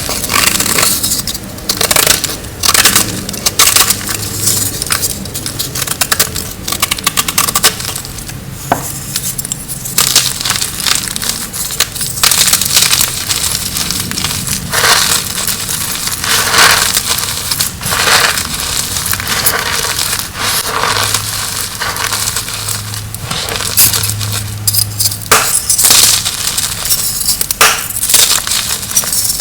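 Blocks of dyed gym chalk being crushed: a run of crisp, irregular crunches and crumbling crackles.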